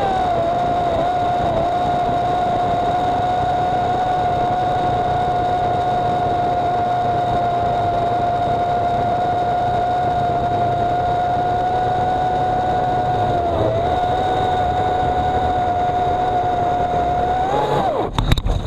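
EGO CS1800 56-volt brushless electric chainsaw running under load as it cuts through a large tree trunk, a steady high whine. The pitch sags briefly partway through, then near the end the whine rises, stops, and a few sharp knocks follow.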